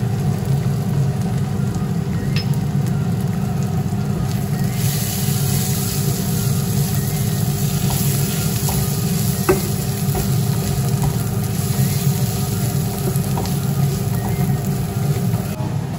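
Onion and spice masala sizzling in butter and oil in a pan while it is stirred, with a few light clicks from the spatula. The sizzle turns brighter about five seconds in, over a steady low hum.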